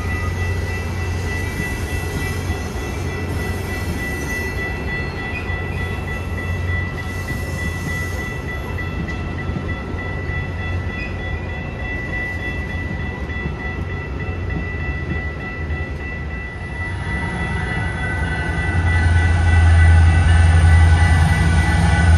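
Metra commuter train running, with a steady low hum and a steady high whine; about seventeen seconds in it grows louder and more tones join in.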